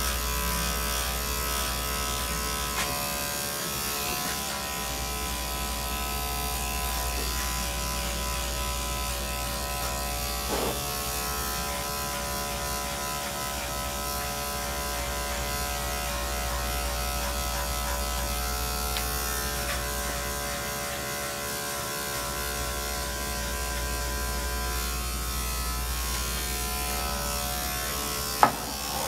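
Corded electric dog-grooming clippers running steadily as they cut through a dog's coat, with one sharp click near the end.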